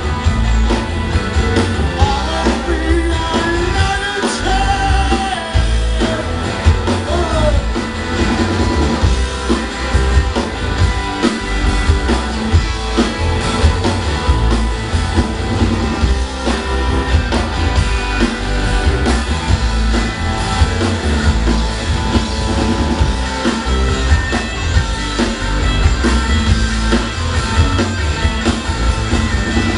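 Live rock band playing loudly: electric guitars, bass guitar and drum kit with a steady beat.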